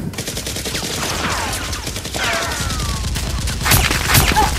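Rapid bursts of gunfire sound effects, with several falling whines and two louder shots about three-quarters of the way through.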